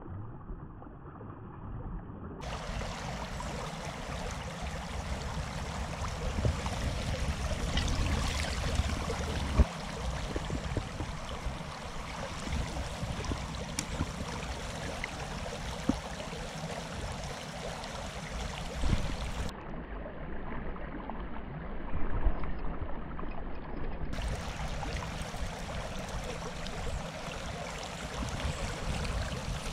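Shallow river riffle rushing steadily over stones, with a couple of brief sharp knocks.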